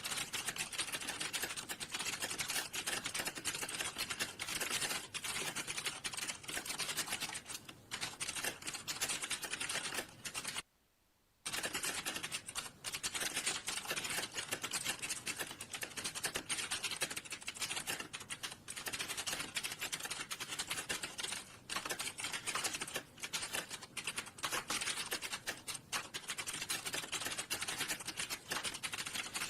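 Rapid, continuous typing on a computer keyboard: a dense run of key clicks, with one pause of under a second a little before the midpoint.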